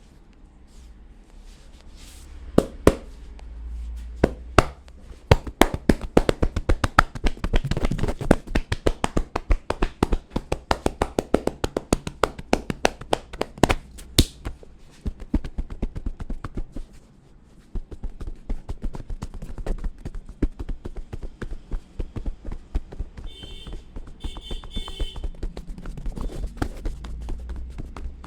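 Fast, irregular tapping and clicking of a head massage, many strokes a second, thick for about ten seconds and then sparser. A few short high squeaks come near the end.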